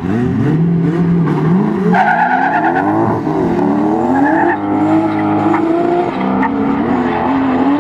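Drift cars at full throttle mid-run: engines revving, their pitch repeatedly rising and falling as the drivers work the throttle, with tyres squealing underneath. The sound starts abruptly at full loudness.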